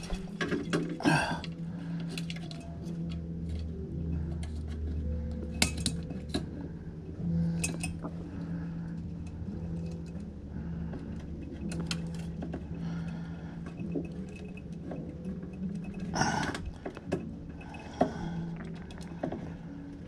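Scattered small metallic clicks and clinks as wire spade connectors are worked onto the terminals of a refrigerator compressor's replacement overload relay and start capacitor, over a steady low hum.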